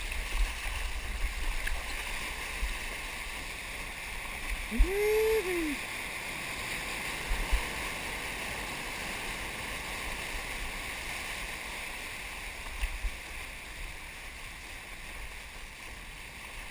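Water rushing and splashing past a surfboard riding a wave, picked up close by a microphone on the board, with a few dull knocks. About five seconds in, a short tone rises and falls in pitch.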